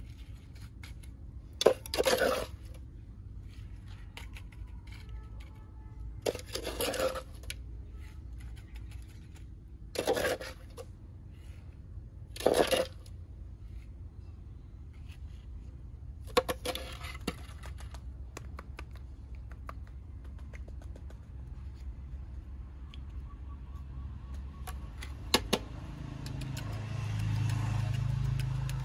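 A small metal trowel scraping through wet cement mix and clinking against the rim of a metal pot in five short bursts a few seconds apart. A low rumble rises near the end.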